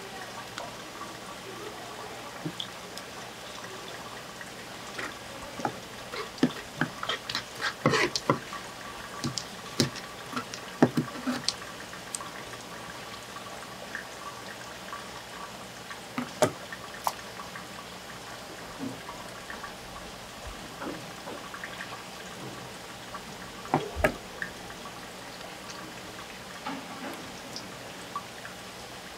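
Water dripping and trickling as wet seafood is handled and cleaned, with irregular wet clicks and knocks, busiest about a quarter of the way in and then a few single sharp knocks.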